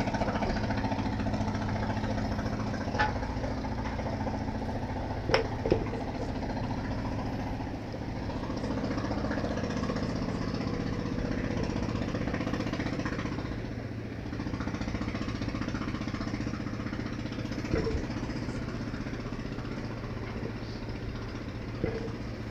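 A motor running steadily with a fast pulsing beat, with a few sharp clicks about three and five seconds in and again near the end.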